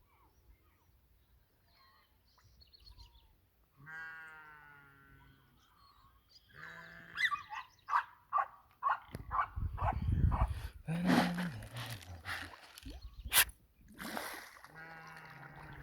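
Tilapia splashing at the water surface as they take feed, a dense run of sharp splashes in the middle. An animal calls twice in steady pitched cries, each about a second and a half long, one before and one after the splashing.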